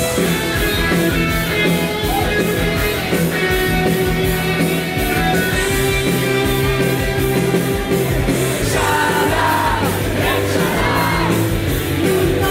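Live rock music from an electric guitar over a backing track with a steady drum beat, played through a stage PA. A woman's singing voice comes in about nine seconds in.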